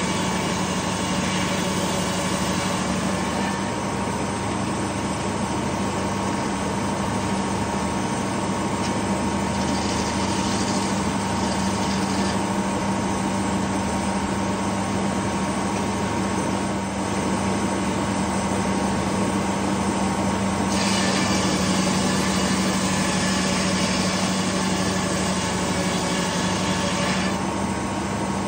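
Detroit Diesel engine running steadily at speed, driving a large circular sawmill blade through a pine log. A hiss from the blade in the wood comes and goes with the passes, strongest at the start, briefly around ten seconds in, and for several seconds past the twenty-second mark.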